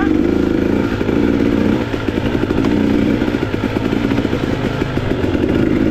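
2021 KTM EXC 300 TPI single-cylinder two-stroke enduro bike's engine running under throttle as it is ridden, its note rising and falling a little, with a brief dip about two seconds in.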